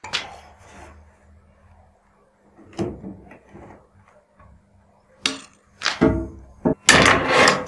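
Pieces of wood being handled: a few separate knocks, then a louder scraping rub of wood against wood near the end.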